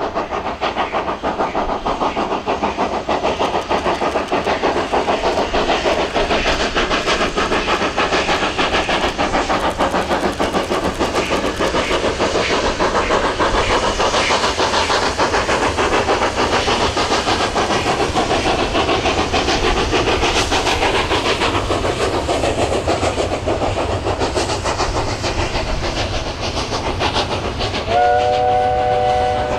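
Class 25NC steam locomotive working hard past with a heavy freight train, its exhaust beating rapidly, then the long line of freight wagons rolling by with a steady clatter of wheels over the rails. Near the end a train whistle sounds a sustained chord of several notes.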